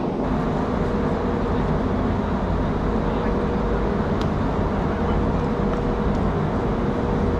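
Steady low rumbling background noise with a faint, intermittent hum.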